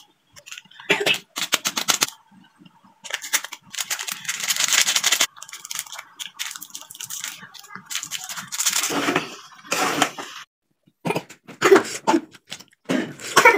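Irregular bursts of clicking, crinkling and scraping as a foil Maggi seasoning sachet is snipped open with scissors and shaken out into the pan, with spoon stirring in the pan between bursts.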